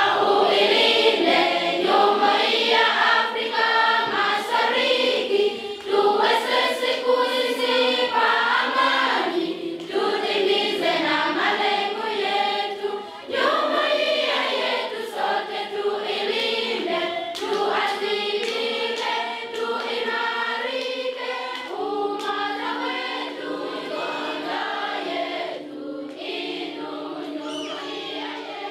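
Schoolchildren's choir singing together in many voices. Over the last quarter they hold a long, steady chord that slowly grows quieter.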